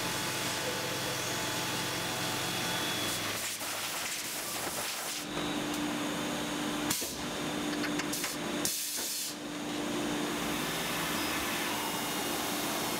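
Tormach PCNC 770 CNC mill machining aluminium: a steady hiss from the mist coolant nozzle over the running spindle. A steady low hum joins about five seconds in, and a few short louder bursts of hiss come near the middle.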